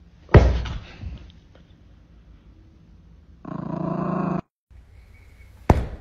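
A sudden thump, then about three and a half seconds in a dog's short growl lasting about a second, and a sharp click near the end.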